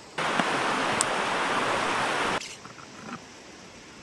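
Steady rush of a river's flowing water, cutting off abruptly about two seconds in to a much quieter background with a few faint ticks.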